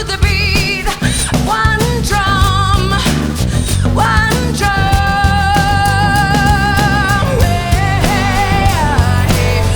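Band playing a rock song with a singer. Around the middle the singer holds one long note with vibrato over drums and bass.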